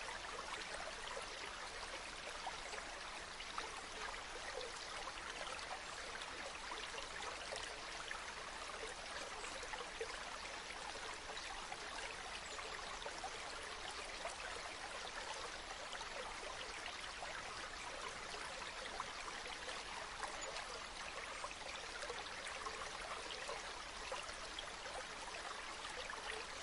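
Mountain waterfall and stream water falling and splashing in a steady, even rush.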